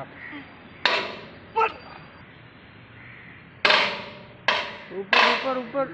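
Sharp metal clanks and knocks, about five of them, one early on ringing briefly, from a wrench and pipe extension working the steel bolts of a Sany SR235 rotary drilling rig's mast joint as it is dismantled.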